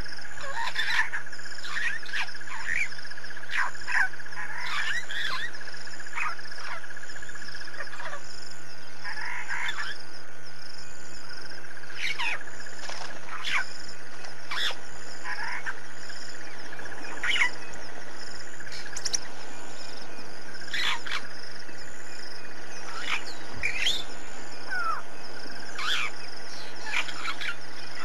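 Wild birds giving many short, sharp chirps, some in quick runs, over a steady high trill that pauses briefly about a third of the way in, with a constant low hum underneath.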